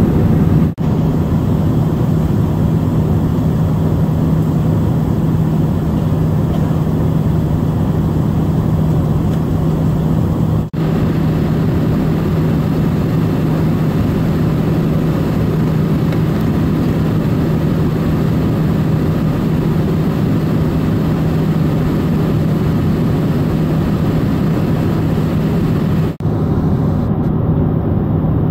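Cabin noise of a Boeing 767-400ER in cruise or descent, heard from a window seat beside its General Electric CF6-80C2 turbofan: a steady roar of engine and airflow with a constant low hum. The sound drops out for an instant three times: about a second in, near the middle and near the end.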